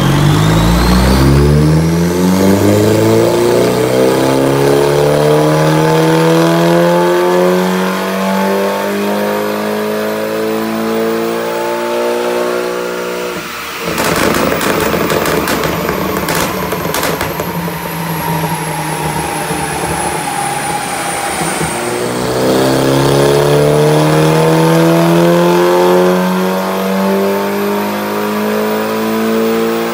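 Tuned car engine being run on a rolling-road dyno: the revs climb steadily under load for about thirteen seconds with a rising whine. Then the throttle lifts with a few sharp cracks from the exhaust, the revs fall away slowly, and near the end they climb again for a second pull.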